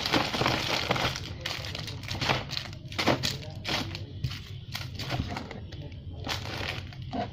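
Rustling and crinkling of packaging as bought toys and slime are put into a bag, in irregular handling noises.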